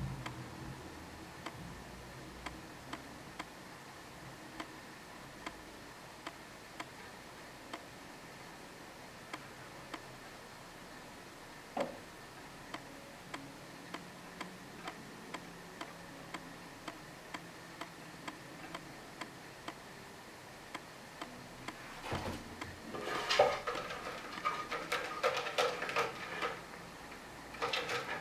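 Quiet room with steady faint ticking, like a clock, and one knock about halfway. Near the end a cat climbs the sisal-wrapped cat tree: claws scratching and rustling on the rope and platforms, louder than the ticking.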